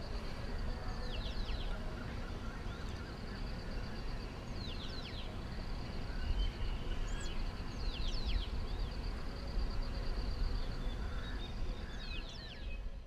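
Rural outdoor ambience: a bird repeats a short run of quick falling whistled notes about every three to four seconds over a steady, rapid high-pitched pulsing trill typical of an insect, all above a low rumble.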